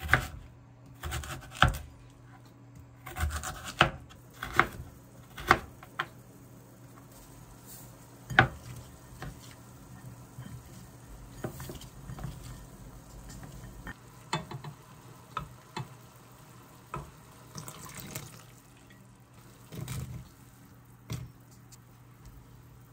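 Kitchen knife cutting Korean radish on a plastic cutting board: a handful of sharp chops spread over the first eight seconds, then softer clicks and clatter of handling, over a steady low hum.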